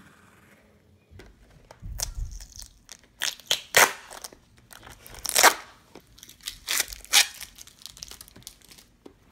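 Plastic wrapping being torn and crinkled off a book: a run of irregular, loud crackles and rips that starts about two seconds in and dies away near the end.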